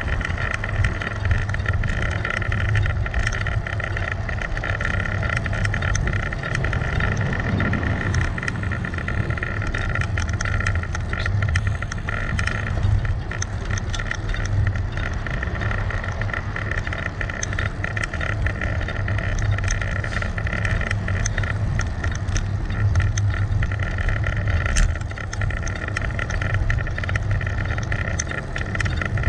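Steady wind rush and road rumble on a bike-mounted GoPro while riding, with many small rattling ticks throughout.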